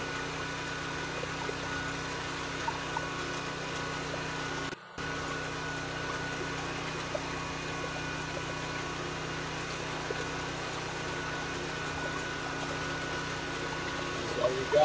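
A-iPower AP5000 portable generator's engine running at a steady speed with a constant hum. It runs normally but puts out no voltage at its receptacles. The sound breaks off for a moment just under five seconds in.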